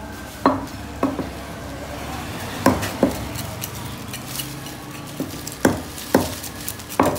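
Knife scraping the scales off a whole Asian sea bass on a metal table, in about seven sharp strokes, mostly in pairs half a second apart.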